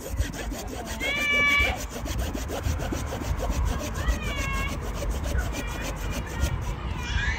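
Rapid, even scraping or sawing strokes at wood, with high, pitched squeals about a second in, around four seconds in, and a falling squeal at the end.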